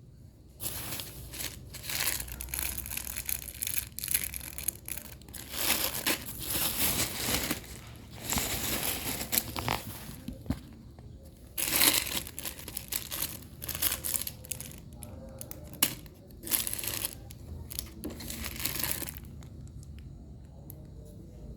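Packaging being torn open and crinkled by hand: a string of irregular rips and rustles, some a second or two long, that stop a couple of seconds before the end.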